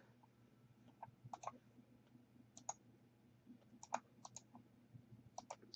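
Faint, irregular clicking, about a dozen short clicks, some in quick pairs, from working a computer while setting up the keyboard's lighting.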